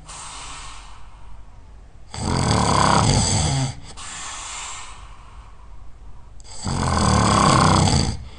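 A person snoring really loud in sleep: two long snores, each about a second and a half, a little over four seconds apart, each followed by a softer breath.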